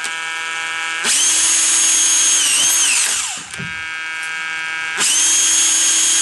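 Power drill boring pilot holes into wood. The motor whines at full speed in two long stretches, its pitch dipping briefly as the bit bites. Between them it runs at a lower, quieter, steady hum.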